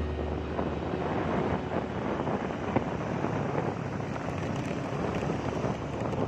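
Wind rushing over a phone microphone on a moving vehicle, mixed with steady road noise.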